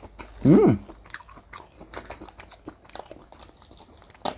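Close-miked chewing of firm, chewy river prawn claw meat, with small wet mouth clicks. About half a second in comes a short hummed "mm" that rises then falls in pitch, the loudest sound here, and a sharp click comes near the end.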